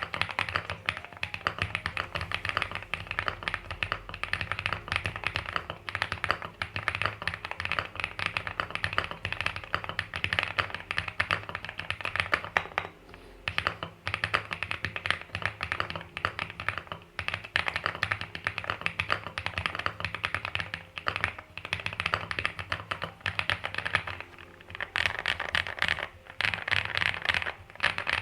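Typing on an Akko Mineral 01 mechanical keyboard with stock Akko Creamy Yellow U1 linear switches and ABS keycaps: a fast, continuous run of key clacks, with brief pauses about 13 and 24 seconds in.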